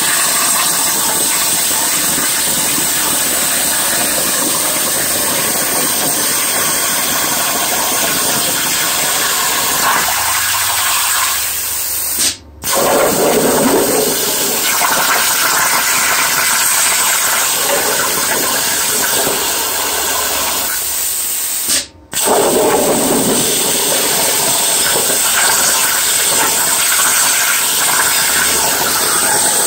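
Plasma cutting torch on a Langmuir Crossfire CNC table cutting 18-gauge sheet steel: a loud, steady hissing arc that breaks off for a moment twice, about twelve and twenty-two seconds in, and comes straight back.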